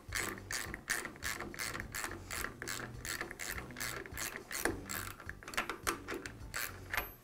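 Even, rapid ratchet-like clicking, about three clicks a second, as the quill return coil spring on a Jet drill press is wound up and its retaining nut worked. The clicking stops just before the end.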